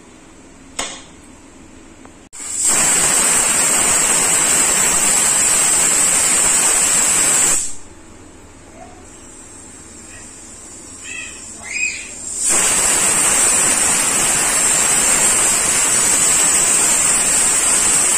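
Stovetop pressure cooker whistling: steam escaping under the weighted valve as a loud hiss with a high whistle tone, twice, first from about two seconds in for around five seconds, then again from about twelve seconds in. These are the whistles counted to time the cooking, a sign the cooker is at full pressure.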